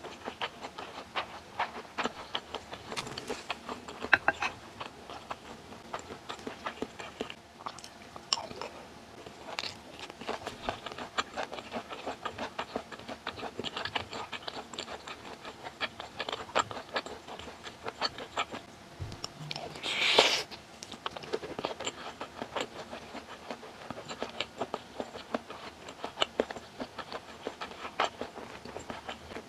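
Close-miked chewing of mouthfuls of japchae rice (glass noodles with beef and vegetables over rice), a steady run of small clicks and smacks of the mouth. About two-thirds through there is one louder, longer noisy mouth sound.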